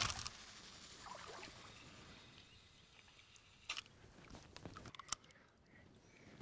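Fishing line hissing off a carp reel's spool after a long-distance cast, fading away over a couple of seconds, followed by a few sharp clicks.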